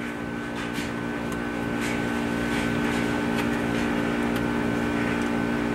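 A steady mechanical hum with a few low held tones, under faint rustling and light clicks of hands working at a sump pump's discharge pipe.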